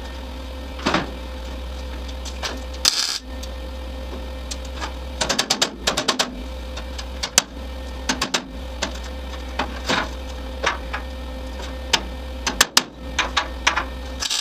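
Irregular metallic clicks and clinks of metal parts being handled and worked, over a steady low hum.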